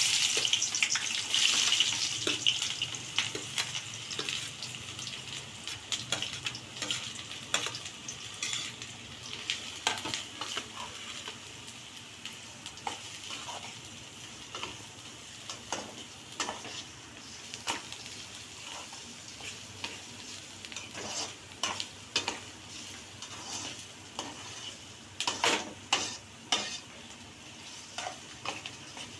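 Chopped onions sizzling as they go into hot oil, loudest for the first few seconds and then settling to a steady fry. A spatula stirs them, knocking and scraping against the pan throughout.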